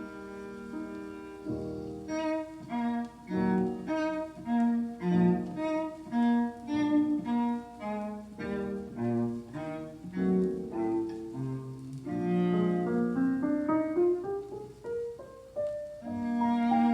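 Classical music played back through an old McIntosh amplifier and its speakers. It opens on a held note, moves into a string of short, separate notes about two a second, and near the end has a rising run before another held note.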